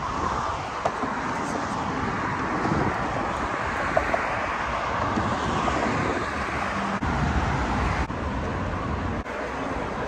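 Steady road traffic noise from passing cars, with a heavier low rumble from about seven seconds in.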